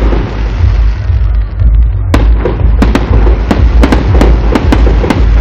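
Fireworks salute going off: a steady low rumble of booms, with sharp cracks coming thick and fast from about two seconds in.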